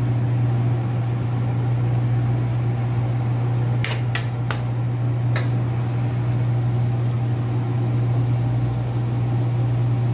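A steady low hum, machine-like and unchanging, with a metal spatula clicking against the pan four times about four to five seconds in.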